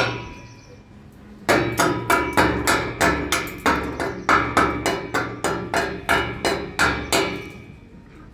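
Hammer striking metal in a quick, even run of blows, about three or four a second, starting about a second and a half in and stopping near the end. A single strike at the very start rings on briefly.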